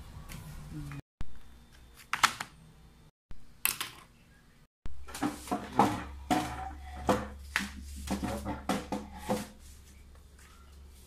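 Household objects being handled and knocked about: a quick, irregular run of clicks and clatters over a low steady hum. The sound is cut off abruptly several times.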